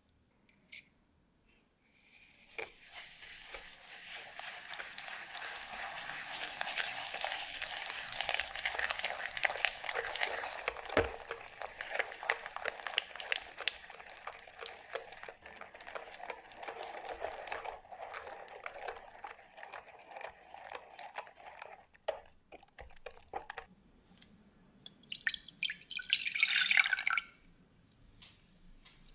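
A wire whisk beats egg yolks and sugar in a glass bowl, with a fast, continuous ticking and scraping of the tines against the glass that lasts about twenty seconds. Near the end, milk is poured briefly into a stainless steel saucepan.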